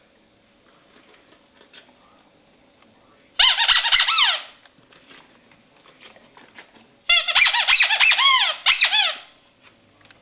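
Rubber squeaky dog toy squeezed in two quick bursts of squeaks, a short one about three seconds in and a longer one about seven seconds in. Each squeak falls in pitch.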